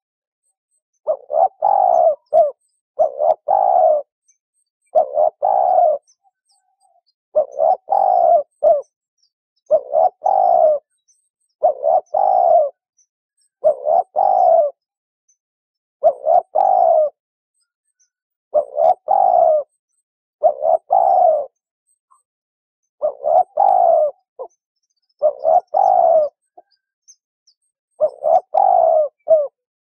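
A dove cooing over and over, one short phrase about every two seconds, with dead silence between the calls.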